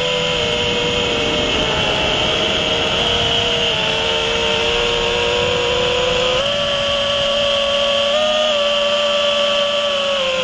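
Brushless motors and propellers of a six-cell FPV quadcopter, recorded by the GoPro on board: a steady buzzing whine over a rush of air, its pitch shifting with the throttle and stepping up about six seconds in.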